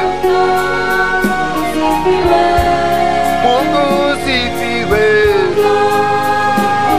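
Choir singing a Swahili gospel song with long held notes, over a keyboard backing with a steady beat.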